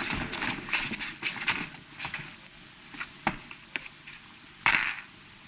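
Light clicks and taps on a hard floor: shuffling feet in the first second and a half, then a few single taps and a short, louder clatter near the end as a game of jacks is played on the floor.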